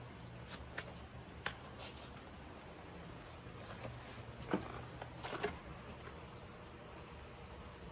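Quiet outdoor ambience: a steady low rumble with a few scattered sharp taps and ticks, the loudest about four and a half seconds in and a short cluster just after five seconds.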